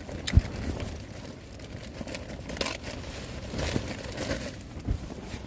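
Hilleberg Allak 2 tent fabric shaking and crinkling in gusts of strong wind and rain, with a sharp knock about half a second in and louder flurries of rustling in the middle.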